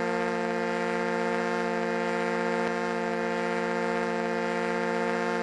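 Foghorn blowing one long, steady blast at a single pitch that never wavers.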